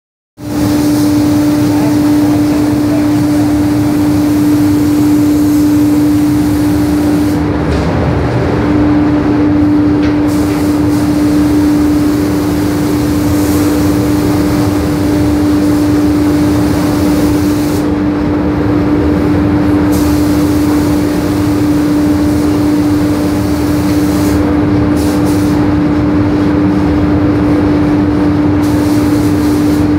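Gravity-feed paint spray gun hissing as it sprays, the hiss cutting off for a few seconds three times as the trigger is let go. Under it runs a steady, loud mechanical hum with a constant low tone.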